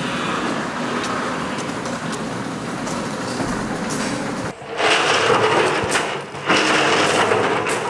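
Overhead garage door opener running steadily as the sectional door rises, stopping about four and a half seconds in. Then a steel 55-gallon drum rolling over gravel, louder and noisy, with a brief let-up about a second and a half later.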